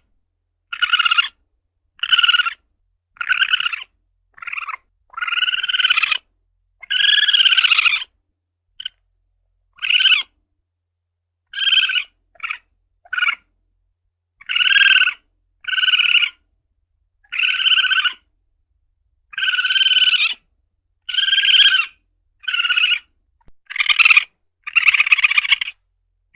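Asian palm civet (luwak) calling again and again: about twenty short, high, arching cries, some brief and some drawn out for about a second, separated by short silent gaps.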